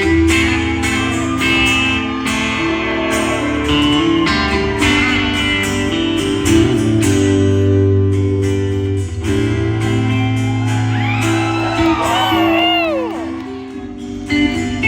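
Live country band playing an instrumental passage, led by guitar over bass and drums, with bending, sliding guitar notes near the end.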